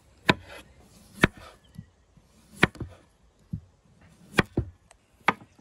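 Chef's knife slicing a raw potato on a wooden cutting board: a series of sharp knocks as the blade goes through and hits the board, roughly one a second.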